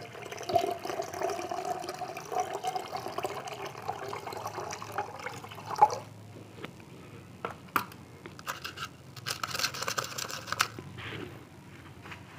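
Distilled water poured in a steady stream into a glass beaker of blue nitrate solution, running for about six seconds and ending with a short knock. Faint scattered ticks and a brief hiss follow.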